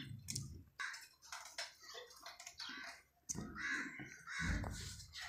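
Birds calling over and over, short harsh calls about two a second, with a low thump near the end.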